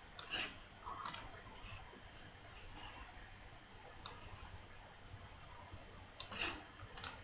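Computer mouse clicks, scattered and sharp, a few coming in quick pairs, over a faint room hiss.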